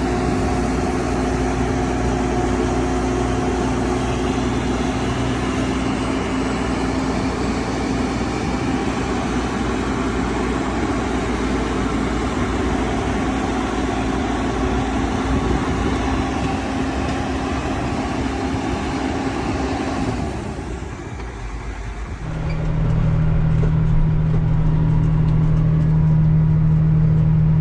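Heavy diesel farm machinery engine running steadily. About three-quarters of the way through it dips for a moment, then a louder, steadier low drone takes over.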